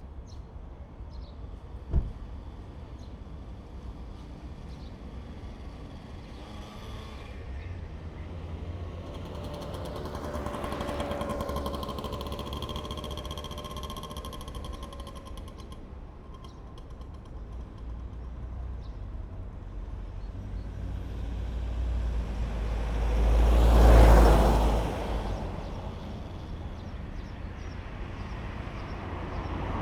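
Street traffic with vehicles passing over a steady low rumble. A sharp knock sounds about two seconds in, a vehicle with a steady whine passes around the middle, and a louder vehicle swells and fades near the end, the loudest moment.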